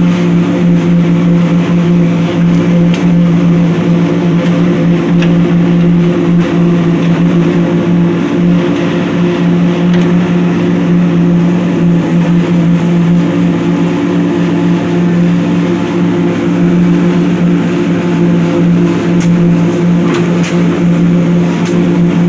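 An engine running steadily at a constant speed, an even hum that neither rises nor falls.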